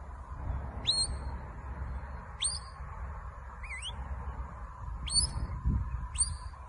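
Shepherd's whistle commands to a working sheepdog: five short whistles, each rising sharply and then held briefly, about one to one and a half seconds apart. The middle one is a quick warble up and down. Wind rumbles on the microphone underneath.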